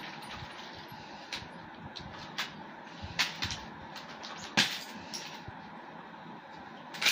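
Nunchaku being swung and caught, giving short, sharp clacks of the sticks and chain at irregular intervals, about seven in all, the loudest about four and a half seconds in.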